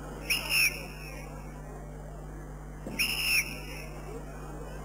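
A whistle blown in two short blasts about two and a half seconds apart, each a high tone that rises slightly and falls back.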